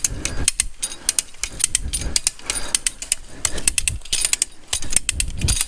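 Hand-operated rope come-along winch ratcheting, a quick irregular run of pawl clicks as the pull line on the tree is tensioned.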